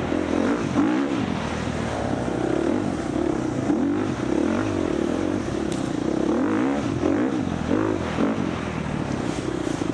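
Four-stroke dirt bike engine revving up and down again and again under changing throttle, heard close at race pace.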